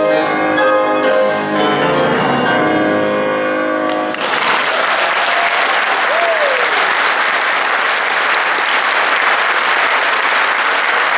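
A concert grand piano playing the closing notes of a fast classical solo piece, ending about four seconds in. An audience then breaks into applause at once, which carries on steadily.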